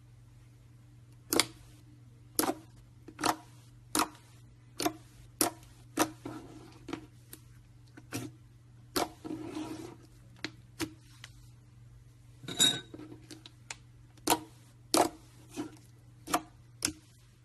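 Irregular sharp clicks and knocks of small objects being handled and set down on a hard surface, about one a second, with a brief rustling or scraping stretch about nine seconds in, over a steady low hum.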